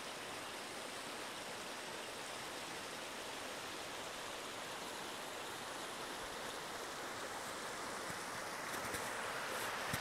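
Small mountain stream flowing between snow banks: a steady rush of running water that grows a little louder near the end.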